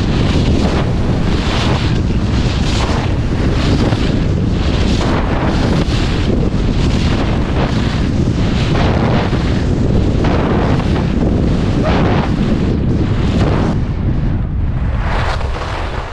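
Wind buffeting a GoPro action camera's microphone during a fast run down a groomed ski slope. Over it, the hiss of edges scraping the packed snow comes in swells about once a second, with each turn.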